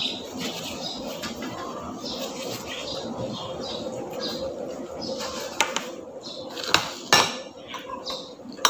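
A person eating and chewing, then several sharp clinks of a metal spoon against ceramic dishes, spaced about a second apart in the second half.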